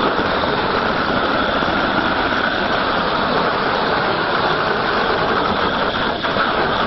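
Handheld propane roofing torch burning with a steady, loud rush of flame as it heats the torchable top surface of a bitumen torch-on membrane.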